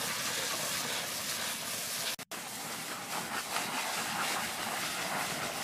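Steady hiss of a fire hose's water jet spraying onto burning brush and peat, cut off for a moment about two seconds in.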